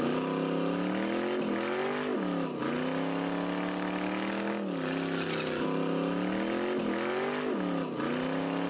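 Race car engine revving hard during a burnout while the rear tyres spin and smoke. Its pitch creeps upward, then dips sharply and climbs back about six times, with a hiss running over it.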